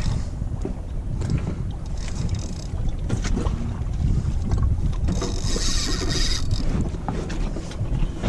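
Wind rumbling on the microphone and water washing against a small boat's hull. There are bursts of hiss about two seconds in and again from about five to six and a half seconds in.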